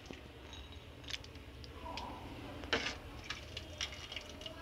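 Vegetable soup being ladled from the pot into a white bowl: a soft pour with a few faint knocks of the ladle against the dishes, the clearest one about two and a half seconds in.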